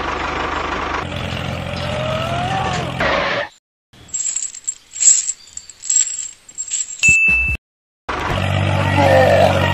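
Tractor engine running steadily, cutting off about three and a half seconds in. A few seconds of clinking and scraping follow, ending in a short ding, and the engine runs again for the last two seconds.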